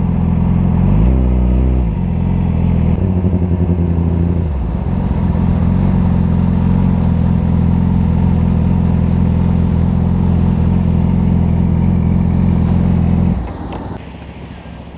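Yamaha R6 sport bike's inline-four engine, heard close up from the bike. It revs up and down through the first few seconds as the bike pulls away, then runs at a steady speed. Near the end the engine sound stops abruptly as the bike pulls over and stops.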